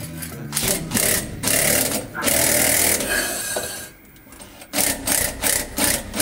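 Cordless impact driver turning a scissor jack's screw to tilt the car so more oil drains out. It runs in one long spell of a few seconds, pauses briefly, then runs again in short bursts.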